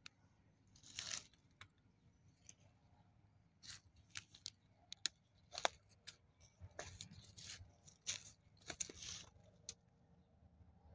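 Dry leaf litter and twigs crackling and rustling in short, irregular crunches and clicks, sparse at first and thickest in the middle stretch.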